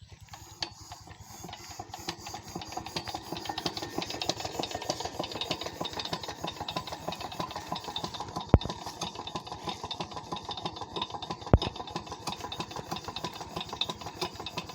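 Freshly repaired 16 HP Chief single-cylinder Peter-type diesel engine starting up and building speed over the first few seconds, then running steadily on its test run after the repair. Two sharp clicks stand out partway through.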